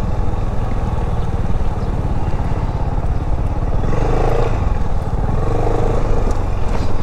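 Yamaha XMAX 300 scooter's single-cylinder engine running steadily at low speed, heard from the rider's seat.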